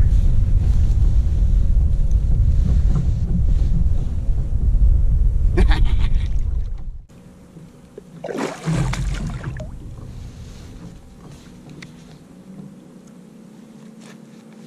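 Wind buffeting the microphone as a loud low rumble, which cuts off abruptly about seven seconds in. After that there is quieter handling noise, with one brief noisy burst about a second later.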